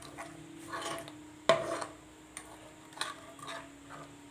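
A spoon stirring a thick ginger and melted jaggery mixture in a pan, with a few sharp clicks of the spoon against the pan, the loudest about a second and a half in. A faint steady hum runs underneath.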